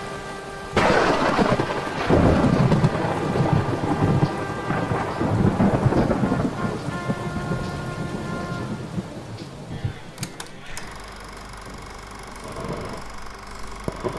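A sudden thunderclap about a second in, then rolling thunder over heavy rain that slowly dies away by about ten seconds. After it, a quieter steady hum.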